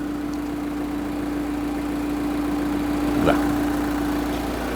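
Car engine idling steadily, a constant hum with an even low rumble.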